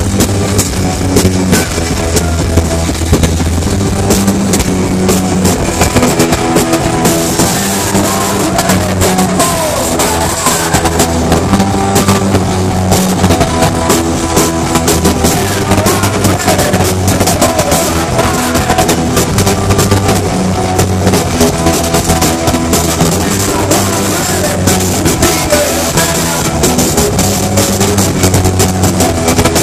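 Live rock band playing at full volume, with drum kit and electric guitar, heard loud and rough from within the crowd.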